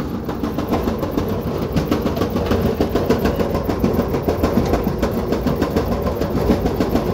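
Gas clothes dryer running with its burner lit: a loud, steady rumble as the drum turns on its belt and idler pulley, with rapid clattering over it.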